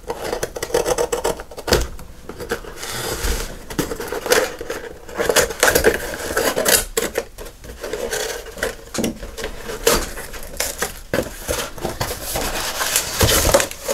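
A long cardboard shipping box being worked open by hand and its wrapped contents pulled out: irregular scraping and rustling of cardboard and packing, with many small knocks and clicks.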